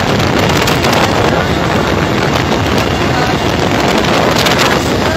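Loud wind buffeting the microphone: a steady rushing noise with quick, irregular thumps.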